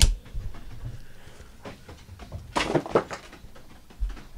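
Trading cards being handled on a table: a sharp tap at the start, a brief rustling slap of cards about two and a half seconds in, and a low thump near the end as something is set down.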